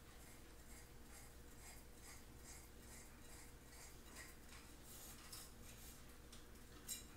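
Faint rubbing and light ticking of metal pole sections being screwed together by hand, with a small click near the end.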